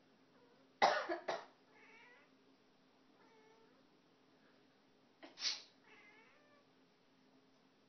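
A person coughs loudly a few times about a second in and again just past five seconds, and each time a domestic cat answers with a short meow; a fainter meow falls in between.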